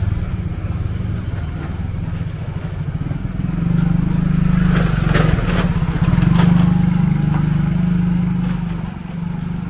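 Motorcycle engine running at low road speed, its pitch and loudness rising about four seconds in and again a couple of seconds later, then easing off near the end. A few sharp clicks sound around the middle.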